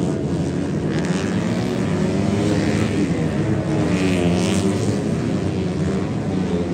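Racing motorcycles passing on a circuit, several engines revving high at once with their pitch rising and falling as they accelerate and shift.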